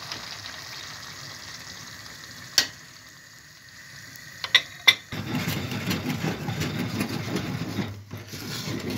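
A few sharp knocks of a metal ladle against a pot over a faint steady hiss, then, about five seconds in, thick cornmeal polenta (mămăligă) being stirred with a wooden spoon in a metal saucepan, a continuous low churning.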